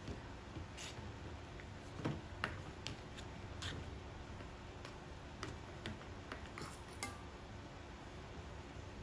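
Metal spoon scooping cooked glutinous rice from a stainless steel bowl and pressing it down into an aluminium foil bowl: light, scattered clicks and scrapes, the sharpest about two seconds and seven seconds in.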